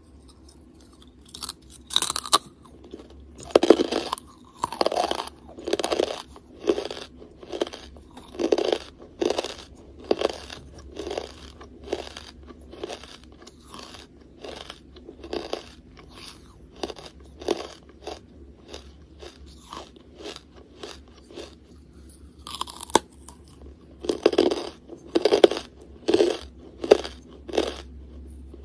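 Hard charcoal being bitten and chewed close to the microphone. There is a sharp crunching bite about two seconds in and another a little after the twenty-two second mark. Each is followed by a run of chewing crunches, about one or two a second.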